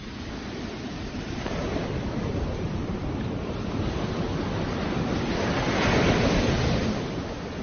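Sea waves breaking and washing up the sand, swelling to a peak about six seconds in and easing off after, with wind on the microphone.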